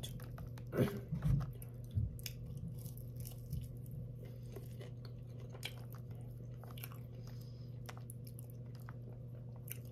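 Close-up chewing and biting of fast-food fries, with a few crunchy bites in the first two seconds and then many small wet mouth clicks, over a steady low hum.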